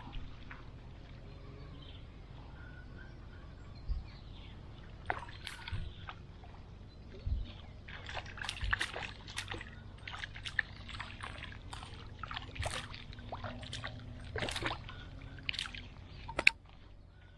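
Water splashing and sloshing in short, irregular bursts with scattered clicks, busiest in the second half and ending in one sharp, loud splash or snap near the end.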